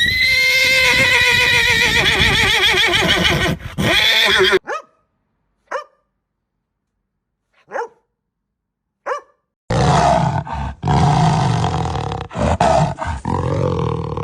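A series of separate animal calls: a long, high call with a trembling pitch, a few short calls with silence between them, then a rough, noisy call.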